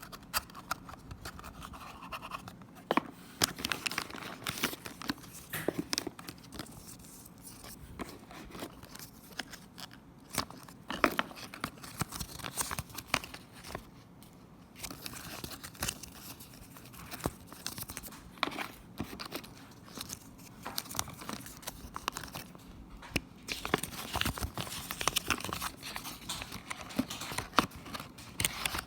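Packaging being handled and opened by hand: rustling, crinkling and tearing with many irregular small clicks and scrapes.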